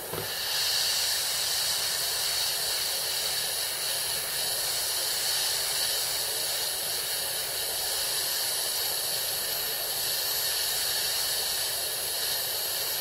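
Airbrush spraying gloss varnish thinned 1:1 at about one atmosphere of air pressure: a steady, even hiss of air and spray.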